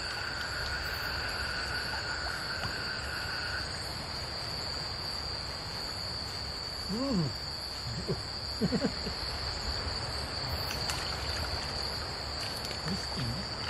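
Night insect chorus: a steady high-pitched shrill, with a second lower trill that stops a few seconds in, over the even rush of running stream water. A few short gliding calls sound around the middle.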